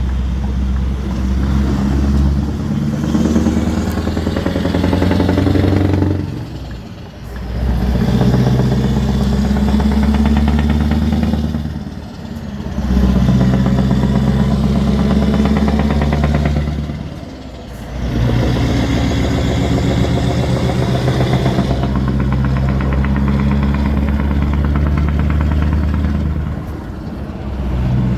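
Scania R520 truck's V8 diesel pulling hard, its exhaust note rattling. The engine note briefly dips and comes back three times, about five seconds apart, as gears are changed.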